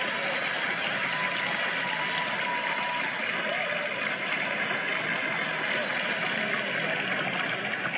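Steady applause from a large theatre audience, heard off a television broadcast.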